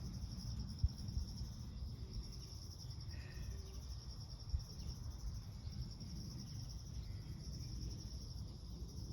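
Insects trilling steadily in a high, finely pulsing chorus over a low rumble, with two brief knocks, one about a second in and one about halfway through.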